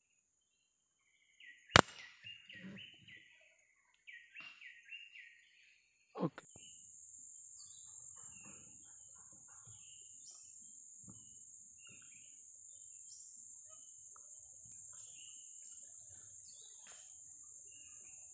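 An air rifle fires once, a single sharp crack about two seconds in, while a bird chirps in short trills. From about six seconds a steady high-pitched insect drone fills the forest.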